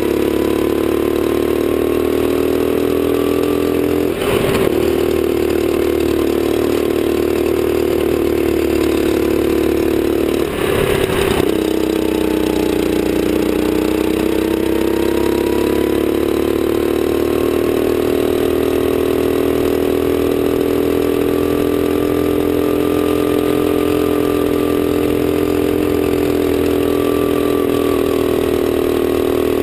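Sodi kart engine running hard at high revs, heard from on board. Its pitch drops briefly about twelve seconds in as the kart slows for a corner, then climbs again on the following straight. Two short rushes of noise break the engine note, about four and eleven seconds in.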